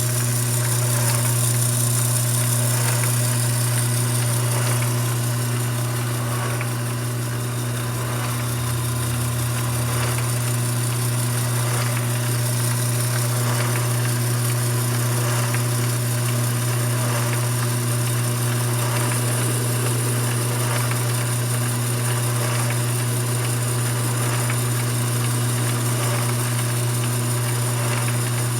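Mini lathe running steadily: a constant motor hum with fainter higher tones over it.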